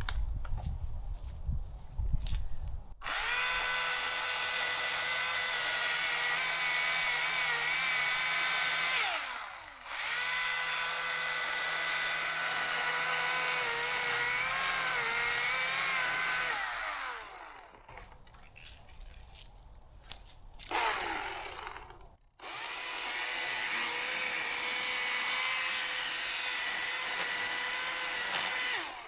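Husqvarna chainsaw running at high revs through a long cut into a tree. It eases off briefly a third of the way in, and its pitch wavers as the chain meets the wood. After the middle it drops back for several seconds, then revs up again for a second steady run near the end.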